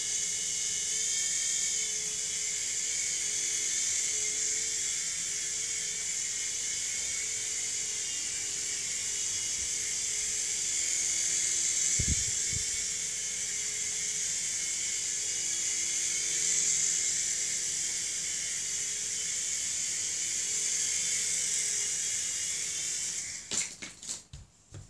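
Small electric motors and rotor of a toy RC helicopter running with a steady high whine that rises and falls slightly in level. There is a low thump about halfway through, and the whine cuts off near the end, followed by a few clicks.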